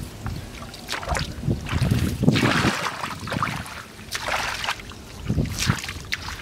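Water splashing and sloshing in irregular bursts as hands work through a shallow, muddy rice-field pool while fishing by hand.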